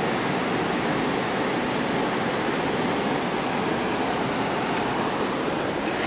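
Pedernales River in flood, muddy whitewater rushing over rock ledges in a steady, loud, unbroken rush of water.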